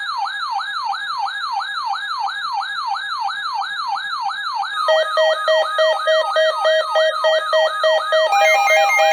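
Electronic alert siren repeating a fast falling sweep about three times a second. About five seconds in, a pulsing beep joins it, and near the end a second, higher beep pattern is layered on. The siren signals a new emergency weather alert.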